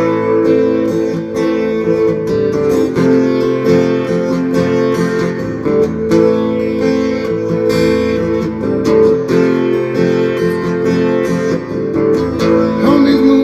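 Music: acoustic guitar strumming and picking chords in an instrumental passage between sung lines.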